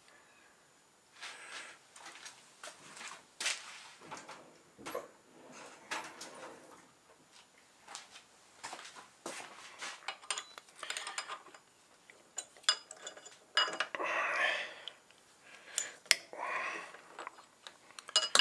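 Open-ended steel spanner working the nuts and bolts of a lathe faceplate setup: irregular metal clinks, taps and short scrapes.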